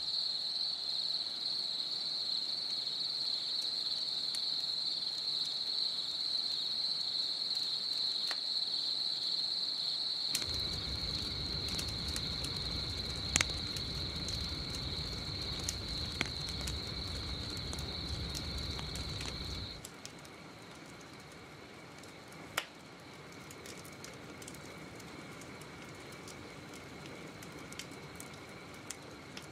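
Steady high trill of crickets, then from about a third in a campfire burning with a low rumble and sharp crackles and pops. About two thirds in, the rumble and the loud trill drop away, leaving a quieter, lower insect trill and an occasional snap.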